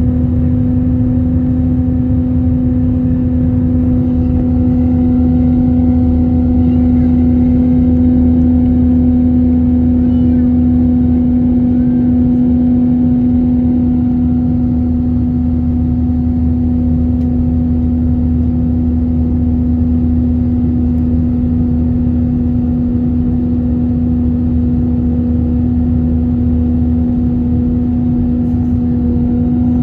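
Airbus A321-231's IAE V2500 engines and airflow heard inside the cabin during the climb after takeoff: a steady low rumble with a loud, unwavering hum over it.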